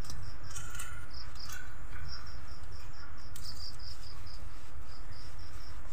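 Night insects, crickets, chirping: a steady train of short high-pitched chirps, about five a second, in runs with brief gaps.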